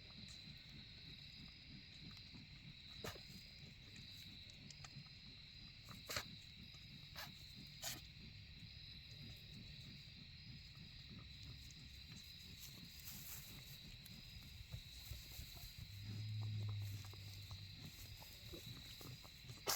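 Crickets chirping steadily in the night, with scattered small clicks and knocks. A single low grunt comes about sixteen seconds in.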